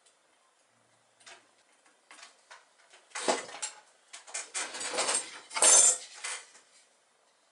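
Tools and small metal objects clinking and rattling on a wooden workbench as they are handled: a few scattered clicks at first, then a busy run of clatter from about three seconds in that stops just before the end.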